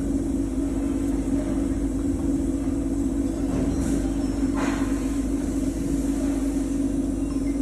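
Automatic CNC end mill grinder running with a steady hum over a low rumble, with a short hiss about four and a half seconds in.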